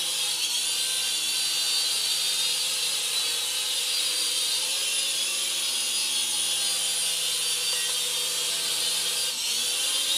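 Blue Jay WiFi FPV toy quadcopter hovering, its small motors and propellers giving a steady high-pitched whine, with a brief dip and rise in pitch about nine seconds in as the throttle changes.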